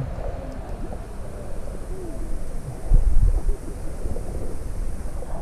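Wind buffeting the microphone as a low rumble, surging about three seconds in, with faint distant voices underneath.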